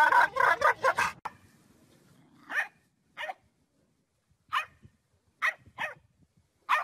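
A large black dog making a weird, rapid, wavering pulsed noise that cuts off about a second in, followed by six short, separate dog sounds spread over the rest.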